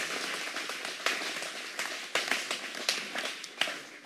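Congregation applauding, the clapping fading away toward the end.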